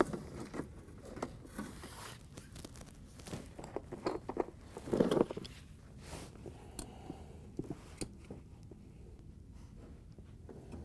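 Rustling, scraping and small clicks of gloved hands fitting a hose clamp onto the rubber hose at a dishwasher's water inlet valve, with the loudest handling noises about four to five seconds in.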